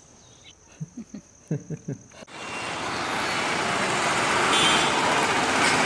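Faint steady insect chirring with a few brief soft vocal sounds, then, about two seconds in, the dense noise of busy road traffic comes in and grows steadily louder.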